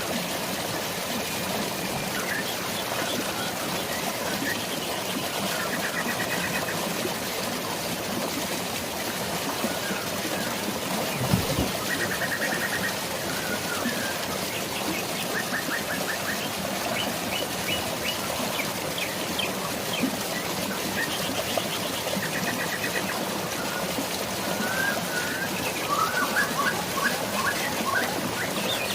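Steady rush of flowing stream water, with birds chirping and giving short rapid trills every few seconds, busiest near the end. A single brief low thump about eleven seconds in.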